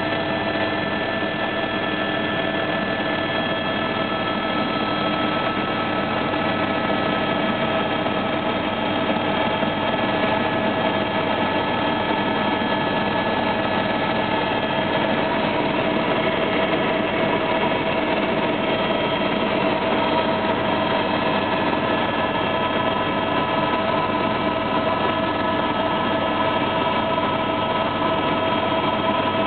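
Small aircraft's engine heard from inside the cabin, a steady drone with several held tones. It gets a little louder about a third of the way in as power comes up for the takeoff.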